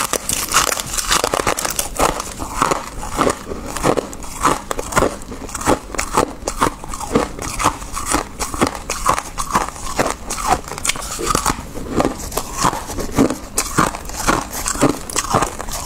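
Freezer frost being bitten and chewed: a steady, irregular run of crisp crunches, several a second, with crackling between.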